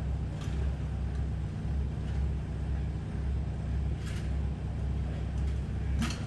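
Heavy diesel construction machinery idling with a steady low rumble and hum. A few short clicks or knocks cut through it, the sharpest near the end.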